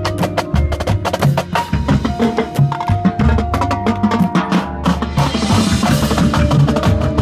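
Marching band drumline of snare, tenor and bass drums playing a rapid, driving rhythm close by, with the band's horns holding sustained notes over it.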